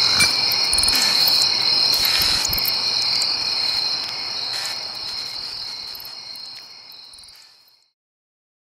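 Steady high chirring like crickets, with a few faint clicks, fading out and ending in silence about seven seconds in.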